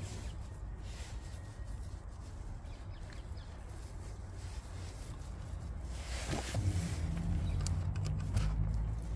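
Fabric rustling and rubbing close to the microphone from a work-jacket sleeve, over a low rumble, with a louder swish about six seconds in. A few light clicks follow near the end as a screwdriver works at the oil pump.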